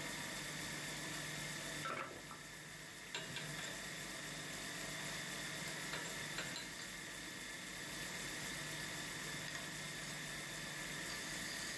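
Metal-spinning lathe running with a silver workpiece, a steady hiss with a faint high whine. The hiss dips for about a second two seconds in, and there are a few light metallic clicks.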